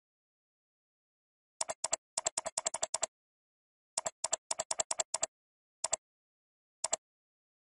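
Computer mouse button clicking repeatedly, each click a quick double tick of press and release. There are two fast runs of clicks, the first starting about one and a half seconds in and the second about four seconds in, followed by two single clicks, with dead silence between.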